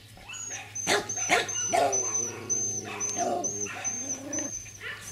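Puppies yipping and barking while they play, with short high yelps about a second in, then longer whiny vocalising.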